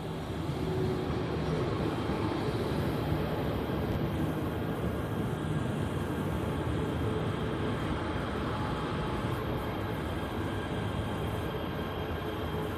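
KTM ETS electric train running into the platform and past, a steady rumble of wheels on the rails with a faint whine on top.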